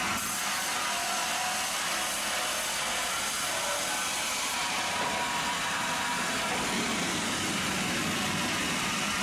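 Sawmill machinery running with a steady, even whir and hiss.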